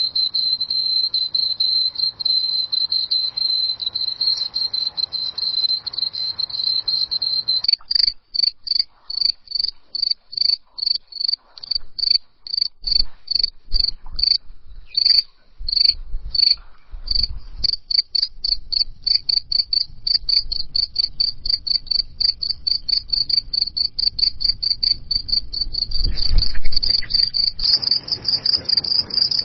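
Crickets chirping with a high-pitched trill. It starts as one continuous trill, then breaks into separate chirps repeated a few times a second, with the rhythm changing twice as one recording gives way to the next. A brief low rumble rises under the chirping near the end.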